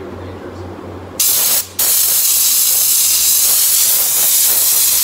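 Compressed-air hose blasting powder-coat dust off a person, a loud steady hiss. It starts suddenly about a second in, breaks off briefly, then blows continuously.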